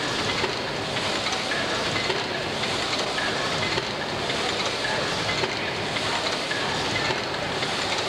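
1913 Allis-Chalmers steam pumping engine running, a steady mechanical noise with a short, high-pitched tone repeating about every one and a half seconds.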